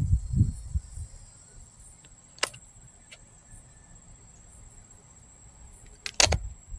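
A few handling clicks and knocks, with a low rumble in the first second, a sharp click midway and a louder double knock near the end, over a steady high-pitched tone.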